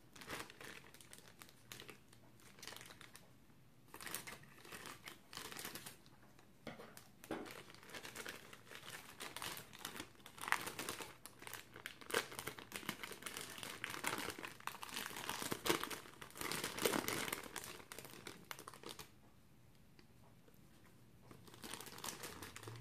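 Clear plastic zip bag crinkling and rustling irregularly as hands knead a lump of white slime inside it. It goes quiet for about two seconds near the end, then crinkles again briefly.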